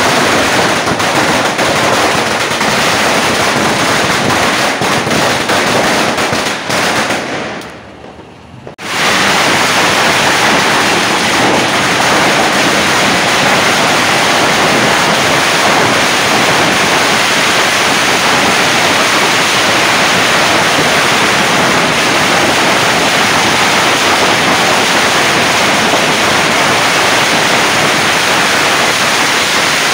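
An Indigo 10,000-wala firecracker garland going off: hundreds of small bangs a second merging into one dense, continuous rattle. It drops away briefly about eight seconds in, then comes back just as dense.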